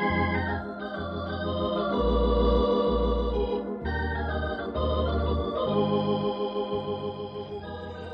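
Organ music bridge marking a scene change in the radio drama: held chords over a bass line that moves every second or so, easing off slightly near the end.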